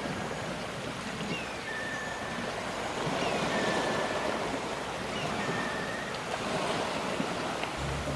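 Waves breaking and washing on a beach, a steady rush of surf. A high two-part call, a short falling note then a held one, repeats three times about two seconds apart.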